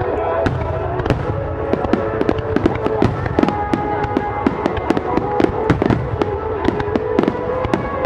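Aerial fireworks crackling and popping: many sharp cracks in quick, irregular succession all the way through.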